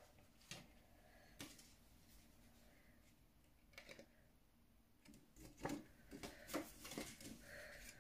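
Soft paper crinkles and handling clicks as a folded paper lyric insert is opened out by hand, a few scattered at first and then coming thicker about five to seven seconds in.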